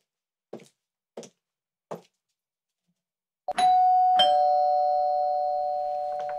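Three high-heeled footsteps on a tiled path, about two thirds of a second apart, then a short pause. About three and a half seconds in comes a two-tone ding-dong doorbell chime, a higher note followed by a lower one, both ringing on and slowly fading.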